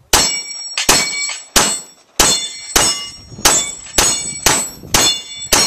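A rapid string of about ten handgun shots at a steel plate tree, roughly one every half-second or so, each followed by the ringing of the struck steel plate.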